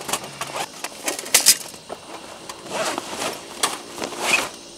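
Rustling and crinkling of a Captain Stag fabric gear bag as hands open and rummage in it, in several separate bursts, the loudest about a second and a half in.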